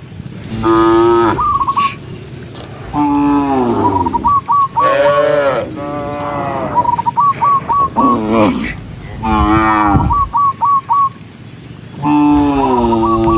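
Several cattle mooing over and over, about seven long calls, some overlapping from different cows. Between the moos come quick groups of three to five short high chirps.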